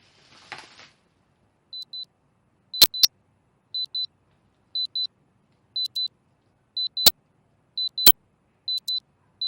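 Electronic beeping: pairs of short, high beeps about once a second, like a countdown timer, with a few sharp clicks among them. A brief rustle comes about half a second in, before the beeping starts.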